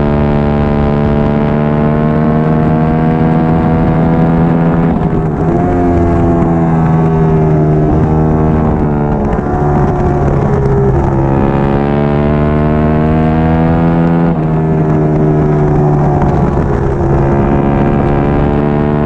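Triumph Daytona 675R's three-cylinder engine running hard at high revs, with wind rushing past. Its pitch breaks and steps several times as the rider shifts gears or rolls off and back on the throttle.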